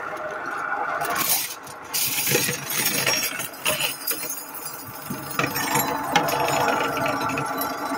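Nicem cutlery polishing machine running with a steady mechanical hum, its drum of granular polishing media churning. Forks and spoons clink and rattle as they are tipped in and slide down the feed chute.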